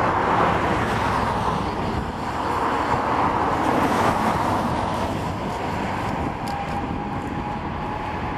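Jet engines of a Boeing 767-300ER on final approach: a steady rushing noise, with a faint whine coming in about six seconds in.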